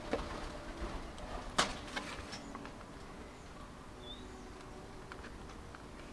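Scattered light clicks and knocks of small tools and parts being handled, the sharpest about one and a half seconds in, over a faint steady hum. A single short high chirp about four seconds in.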